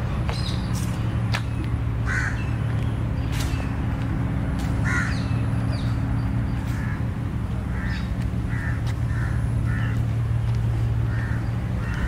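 Birds calling over a steady low hum: a few short, harsh calls, then a quicker run of them from about seven seconds in.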